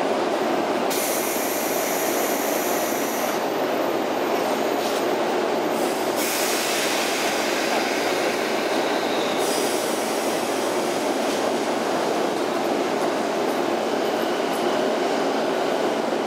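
JR East 185 series electric train departing, its motors and wheels running steadily as it pulls out along the platform.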